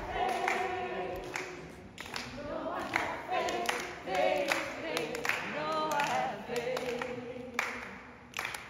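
A group of voices singing a cappella, with scattered hand claps, fading down near the end.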